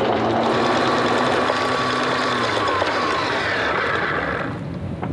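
A motor running steadily with a whine over a rushing noise, cutting off about four and a half seconds in.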